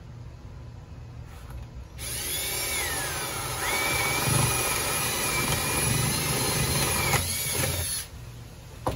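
Ridgid cordless drill boring a hole through a piece of wood with a spade bit. The motor whine starts about two seconds in, rises in pitch soon after, runs steadily, and stops about a second before the end.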